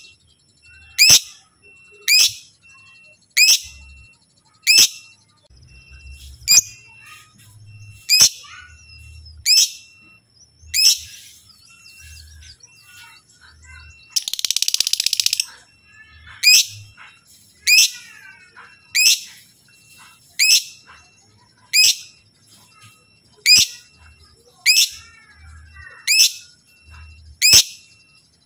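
Lovebird calling with sharp, high, downward-sweeping chirps repeated steadily about once a second, broken halfway through by a harsh chattering burst lasting about a second and a half.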